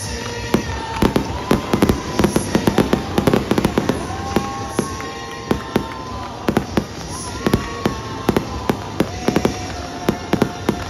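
Aerial fireworks going off in quick clusters of sharp bangs and pops, thickest from about one to four seconds in, then in shorter volleys.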